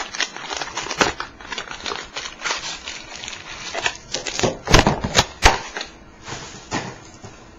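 Trading-card packaging being torn open and handled: an irregular run of crackles and clicks from the cardboard box and pack wrappers, with a few sharp snaps close together about five seconds in.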